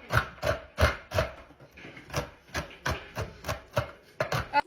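Knife chopping almonds on a cutting board: a quick, somewhat uneven run of sharp chops, about three a second.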